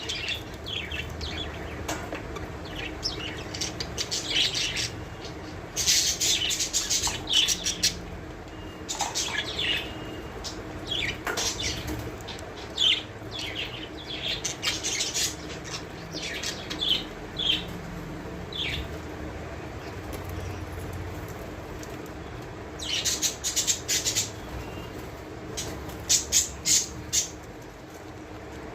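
Caged budgerigars making short, scattered chirps, with a few brief bursts of wing flapping, about six, twenty-three and twenty-six seconds in.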